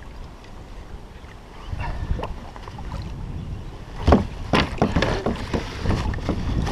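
Low wind rumble on the microphone with water around a kayak. From about four seconds in come several sharp knocks and splashes as a landing net is brought out to a hooked flathead alongside.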